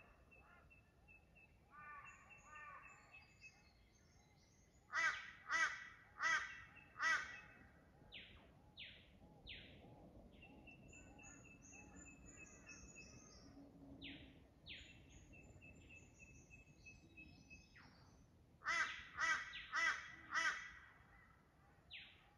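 Forest birds in a winter dawn chorus. A run of four loud calls about five seconds in, and another near the end, stand out over long high whistles and short falling notes from other birds.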